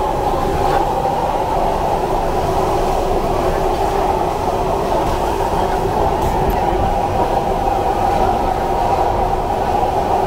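A row of high-pressure gas burners under clay pots, running steadily with a constant roar of flame, and a few faint clinks over it.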